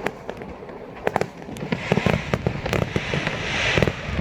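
Aerial fireworks going off in a rapid series of bangs and crackles, with a fizzing hiss swelling toward the end.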